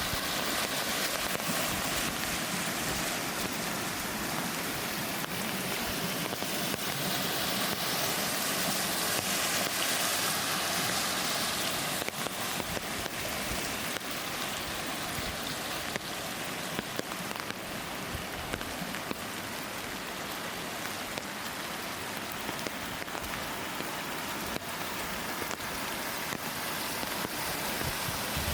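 Falling water splashing steadily: a dense rushing noise with many small drips and splashes through it.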